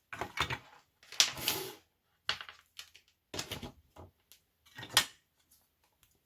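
Plastic parts of a disassembled electric breast pump being handled: a string of short clicks and clatters in about five separate bursts.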